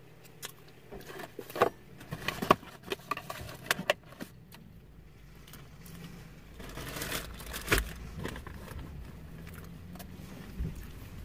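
Clicks and taps of a fork and food packaging being handled, then the rustling of a reusable shopping bag being picked up and opened.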